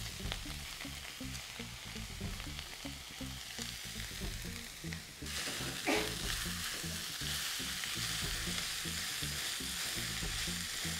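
Crumbled paneer frying in ghee with onion-tomato masala in a non-stick kadhai, sizzling steadily as it is stirred and turned with a spatula. The sizzle gets louder about five seconds in.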